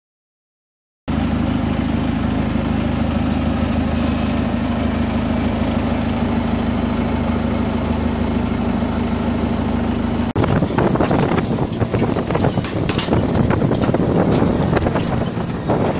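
Tractor engine running steadily, coming in suddenly about a second in. About ten seconds in it cuts to a rougher rush of wind on the microphone with scattered clicks and rattles as the mounted seed drill works the field.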